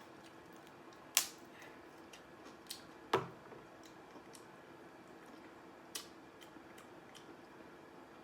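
Eating and food-handling noises close to the microphone: a few sharp clicks spaced seconds apart, the loudest about a second in and about three seconds in, over a faint steady hum.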